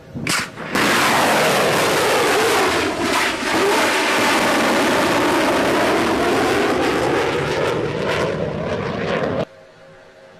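Loud rushing roar of a jet-propelled craft flying past, with the sweeping tone of a close flyby; a short burst comes first and the roar cuts off suddenly near the end.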